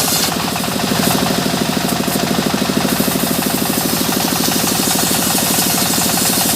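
Sawmill machinery running steadily with a fast, even pulse like an engine's firing.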